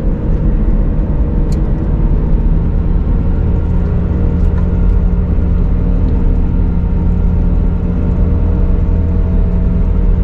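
Car engine and tyre noise heard inside the cabin while driving at a steady speed: a steady low rumble.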